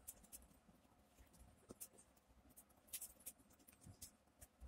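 Faint, scattered scratchy rustles and small clicks of cardboard rings, cut from a toilet-paper tube, being slid together and interlocked by hand into a ball, with a little cluster of them about three seconds in.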